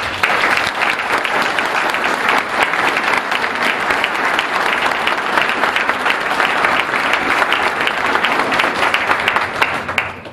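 Audience applause: many people clapping steadily, fading out shortly before the next speaker begins.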